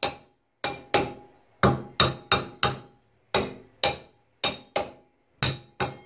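The back of a screwdriver tapping a Price Pfister tub-and-shower faucet's chrome handle: about fourteen sharp metallic knocks in uneven twos and threes, each with a brief ring. The taps are working loose a handle seized onto its valve stem by hard-water deposits.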